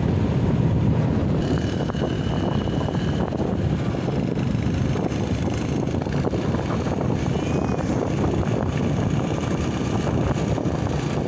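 Motorcycle engine running steadily while riding along a road, a dense low drone mixed with road noise.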